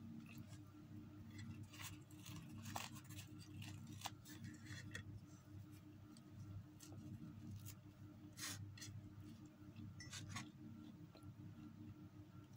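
Faint eating sounds: scattered small clicks and crackles of chewing and of flatbread handled and torn by hand, over a steady low hum.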